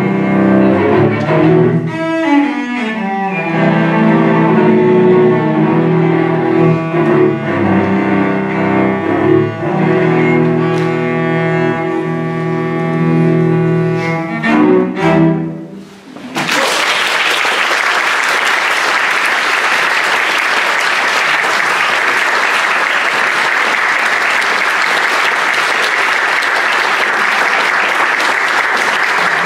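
A live piece of music with sustained low notes and sliding pitches ends about sixteen seconds in. An audience then breaks into steady applause.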